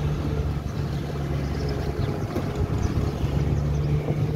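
Car engine running at a steady speed with road and wind noise, heard from inside the moving car.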